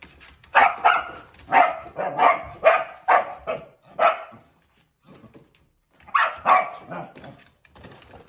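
Nova Scotia duck tolling retriever barking: a quick run of about eight barks, a pause of about two seconds, then two more barks.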